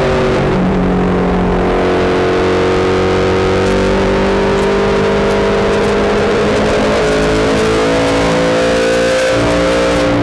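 Late model race car's V8 engine heard from inside the cockpit, running at high revs through the turn, its pitch dipping slightly and then climbing steadily as it accelerates down the straight.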